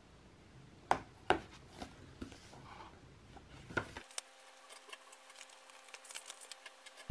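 Light handling sounds on a wooden desk: a few sharp clicks and knocks, the loudest about a second in, then faint paper rustling and small ticks as notebook pages are turned, over quiet room tone.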